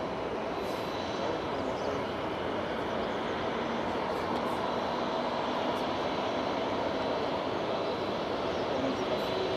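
Airbus A340-600's four Rolls-Royce Trent 500 jet engines running at taxi power: a steady rushing hum with a faint high whine. A lower tone comes in near the end.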